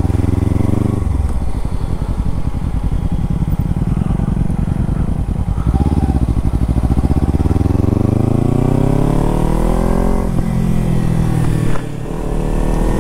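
Kawasaki Ninja 300's parallel-twin engine under way on the road. It climbs steadily in pitch for several seconds as the bike accelerates through a gear, with the revs dropping at gear changes about a second in and again about ten seconds in, and a brief drop in level near the end.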